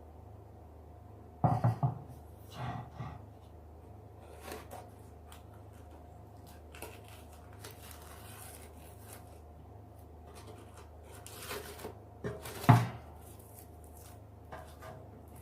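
Intermittent handling sounds: a few short knocks and rubbing scrapes, the loudest a cluster about a second and a half in and a sharp knock near the end, over a faint steady hum.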